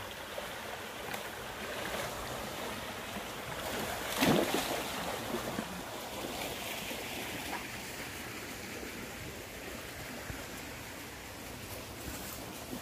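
Small stream running over a shallow riffle, a steady rush of water, with one brief louder knock or splash about four seconds in.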